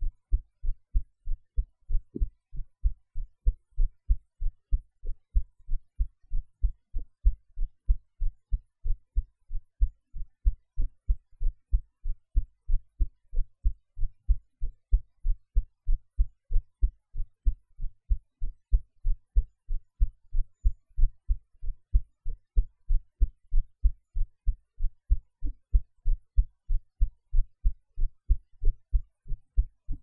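A woman's own heartbeat recorded at the chest, beating in a steady, even rhythm of lub-dub pulses, with the recording's noise cut out by editing.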